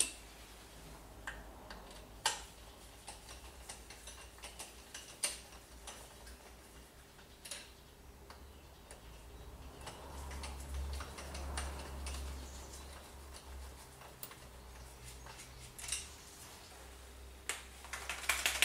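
Scattered light clicks and taps of hand work on the engine, with a cluster of quick clicks near the end: the crankshaft pulley being fitted and its bolts started by hand. A low rumble runs for a few seconds in the middle.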